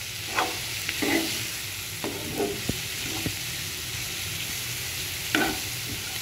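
A metal spatula stirring and scraping a masala of onions, tomatoes and spice powders around a nonstick kadai, with short scrapes over a steady sizzle of frying on a low flame.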